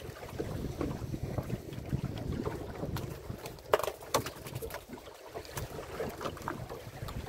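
Wind buffeting the microphone on a boat at sea, a rough, gusting rumble, with scattered knocks and clicks; the sharpest come a little under four seconds in and again just after.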